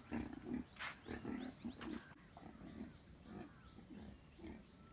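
Faint animal sounds: many short, falling bird chirps scattered throughout, over low, irregular grunting notes from an animal.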